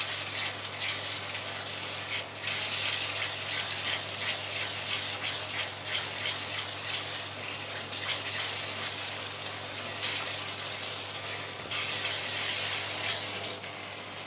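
Sambal chili paste sizzling in plenty of oil in a frying pan as a wooden spatula stirs and scrapes through it. Near the end the stirring stops and the sizzle becomes quieter.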